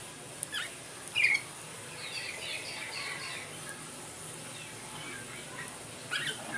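Kutilang emas bulbuls calling. A few short, sharp calls come about half a second and a second in, the second one loudest. A stretch of softer chattering follows, then another call near the end.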